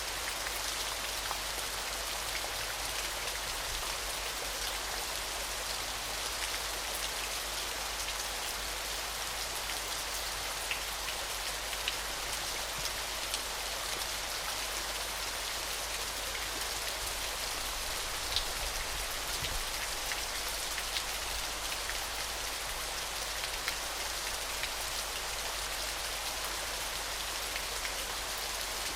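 Falling water splashing in a steady hiss, with small sharp drop-like ticks scattered through it.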